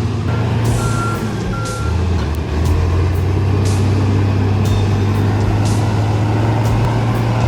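Heavy diesel machine's engine running steadily with a deep drone that shifts pitch about two seconds in, while a backup alarm gives three short beeps near the start. Brief scattered clatters and hisses sound over the engine.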